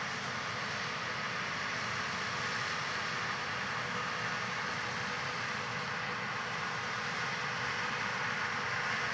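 Steady distant drone of a fleet of John Deere 8000R-series tractors pulling Amadas six-row peanut combines at work across a field.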